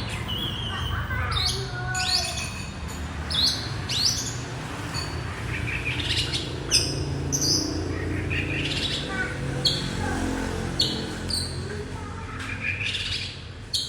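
Several small birds chirping, with many short, sharp calls that often drop quickly in pitch and come close together throughout.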